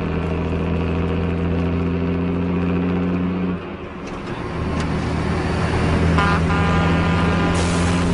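Heavy truck's diesel engine running loud and steady, dropping off briefly about three and a half seconds in and then pulling hard again. A short blast of the truck's air horn comes about six seconds in, and a loud rush of noise begins near the end.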